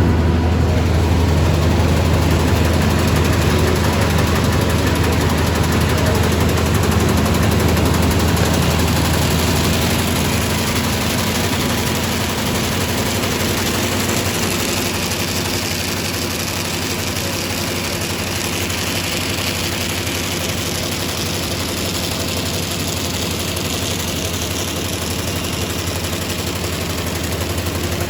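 V-bottom paper bag making machine running at high speed, about 700 bags a minute: a dense, steady mechanical clatter over a low hum. The hum eases about ten seconds in.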